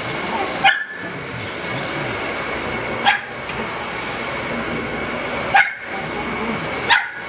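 A Shetland sheepdog barks sharply four times, a couple of seconds apart, at a Dyson Ball Animal upright vacuum cleaner. The vacuum runs steadily over the carpet underneath, with a steady high whine.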